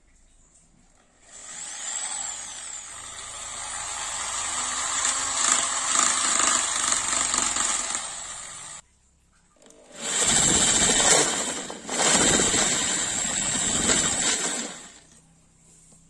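Electric hand drill boring a hole through a PVC pipe reducer. It runs in two spells: the first starts about a second in, grows louder and stops suddenly after some seven seconds; the second starts about ten seconds in, dips briefly about two seconds later, and fades out near the end.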